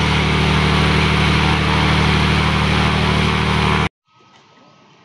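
Cessna 206's piston engine and propeller running loud and steady during an engine run-up. The sound cuts off abruptly about four seconds in, leaving faint outdoor background noise.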